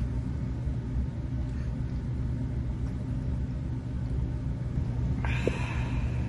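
Steady low mechanical hum and rumble in the room, with a short hiss about five seconds in.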